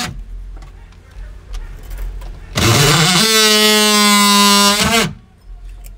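Cordless oscillating multi-tool cutting the plastic housing of a car door speaker. After a quieter stretch with a few faint clicks, the tool spins up about two and a half seconds in, runs at a steady pitch for about two and a half seconds, then winds down.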